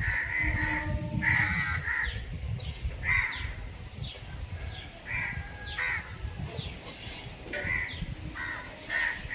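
Crows cawing over and over, a short harsh call about once a second.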